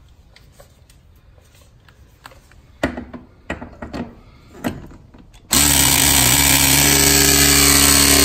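Battery press tool crimping a copper press fitting: a few clicks and knocks as the jaw is set onto the fitting, then about halfway in the tool's motor starts and runs steadily at a constant pitch while the jaw closes on the fitting.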